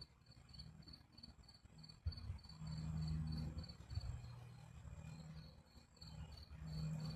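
Crickets chirping in an even train of short high pulses, about four a second. A low hum and rumble comes in about two seconds in.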